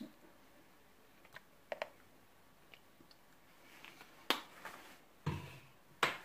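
Scattered sharp clicks and knocks from kitchen items handled at a glass mixing bowl: two faint ticks early, then three louder clicks between about four and six seconds in, one with a short dull thud.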